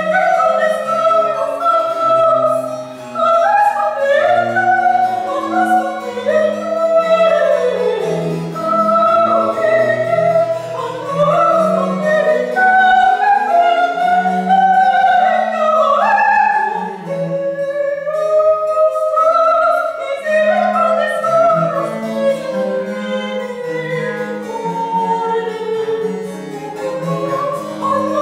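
Baroque vocal music: a soprano sings with vibrato over a cello and harpsichord accompaniment, the cello moving in the bass and the harpsichord plucking chords. The voice drops out briefly a little past the middle.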